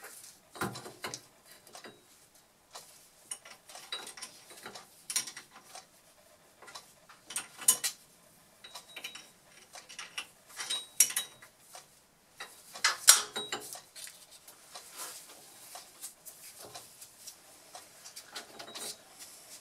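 Irregular metallic clicks and clinks as the change-gear train of a Boxford lathe is adjusted by hand: the quadrant is brought up to mesh the gears and locked in place. The sharpest click comes about thirteen seconds in.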